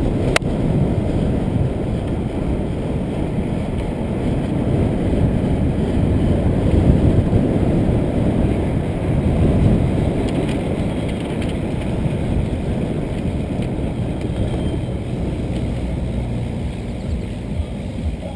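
Wind rushing over the microphone of a bike-mounted camera as a road bike rolls along, with tyre noise on the pavement: a steady low rushing sound. A single sharp click comes right at the start.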